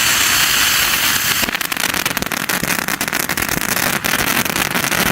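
Firework fountain hissing steadily, then breaking into a dense, rapid crackling about a second and a half in: the crackling stage of a windmill-style fountain and spinning wheel.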